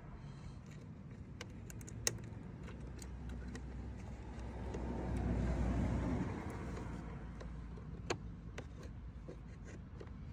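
Scattered light clicks of small caravan lock parts and a spring being handled and fitted. A low vehicle rumble swells and fades through the middle, the loudest sound.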